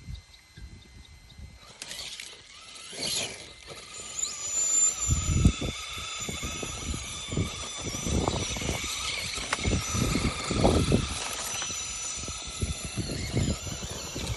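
Radio-controlled rock crawler driving over rough ground: a steady high electric-motor and gearbox whine sets in a few seconds in, over uneven low knocks and rumbles from the wheels and chassis on the terrain.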